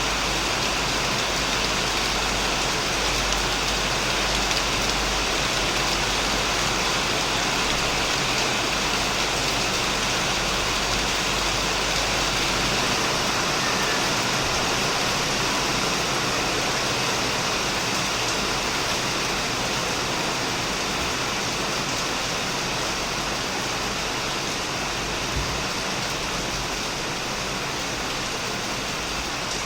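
Heavy rain falling steadily on a shed, a dense even hiss of drops.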